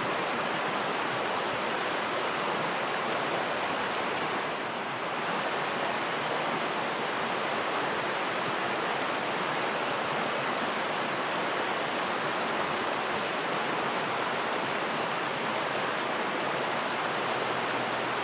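Mountain river rushing steadily over rapids.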